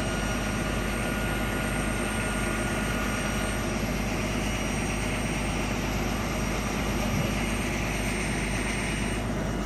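Boat's engine running with a steady, unbroken drone.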